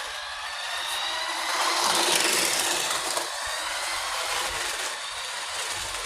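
Toy remote control car's small electric motor and plastic gears whirring as it drives, with a whine that rises and falls in pitch, loudest about two seconds in, then cutting off abruptly near the end.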